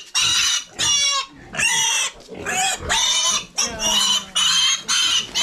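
Black piglet squealing loudly over and over, a string of shrill squeals each under a second with short breaks between, as it is caught and held up by its hind legs.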